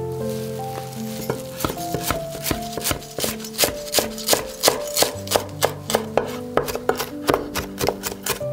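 Chef's knife chopping fresh parsley on a wooden cutting board: a few scattered strikes, then from about three seconds in a quick, even run of knife chops, roughly three a second. Background music plays throughout.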